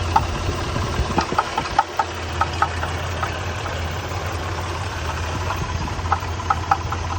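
1993 Nissan Pathfinder engine idling with a steady low hum and an irregular sharp knocking over it. The knocks come in clusters, thinning out in the middle and picking up again near the end. The owner takes it for engine knock.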